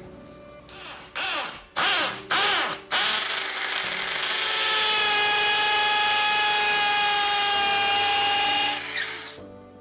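Power drill boring into a plaster wall: a few short trigger bursts, then one steady run of about six seconds that stops near the end.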